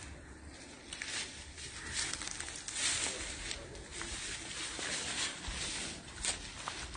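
Footsteps rustling and crunching through grass and debris, with wind rumbling on the phone microphone.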